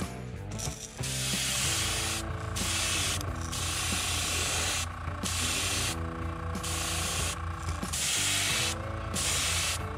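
Airbrush spraying white base coat paint onto a crankbait body: a hiss of air and paint in repeated bursts of about a second, each broken off by a brief release of the trigger.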